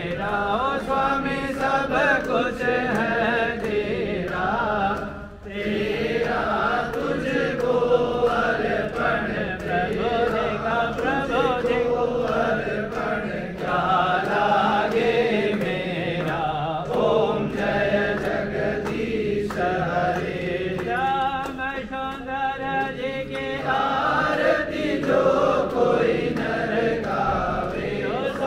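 A group of voices singing a Hindu aarti hymn together, led by a man singing from a hymn book into a microphone. The singing breaks off briefly about five seconds in, then carries on.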